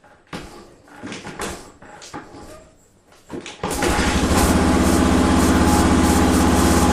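1981 Honda XL500S single-cylinder four-stroke engine starting: a few irregular knocks, then about three and a half seconds in it fires and settles into a steady idle, with the fuel valve now turned on.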